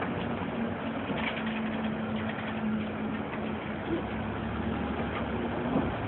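City bus running, heard from inside the passenger cabin: a steady low engine hum over cabin and road noise, with a light knock near the end.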